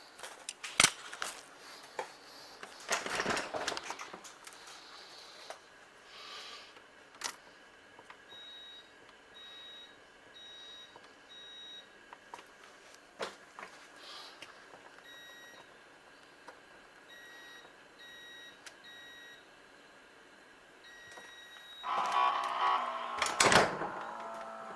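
Refrigerator's electronic beeper sounding short, high beeps, about two a second, in groups of three or four, with scattered clicks and knocks. A louder noisy burst comes near the end.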